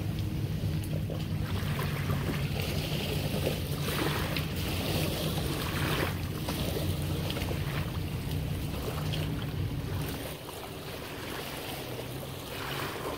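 Wind buffeting the microphone, with small waves lapping at the shoreline. Under them runs a steady low hum that drops away about ten seconds in.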